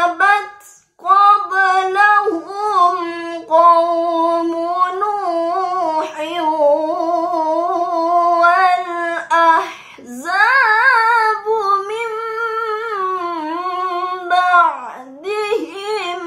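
A young woman's voice reciting the Qur'an in the melodic tilawah style, drawing out long, held notes with ornamented turns. She pauses for breath about a second in and again at about ten seconds.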